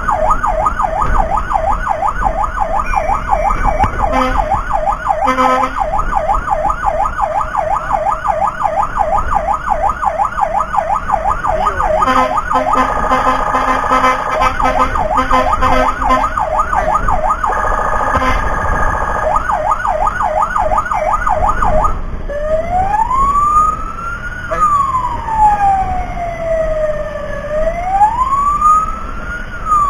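Rescue vehicle siren on a fast yelp for about twenty seconds, then switching to a slow rising and falling wail. A steady horn note sounds over the yelp for a few seconds midway.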